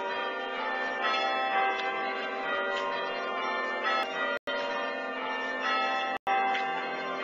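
Church bells chimed by one person on an Ellicombe chiming apparatus: ropes pull hammers fixed to the bell frame against the hanging bells, giving a run of struck, overlapping bell tones that ring on into each other. The sound cuts out briefly twice.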